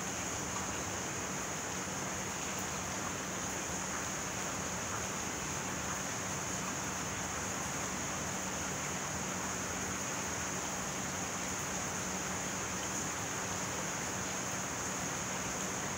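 Steady rain falling, an even unbroken hiss with a bright high edge and no single drops standing out.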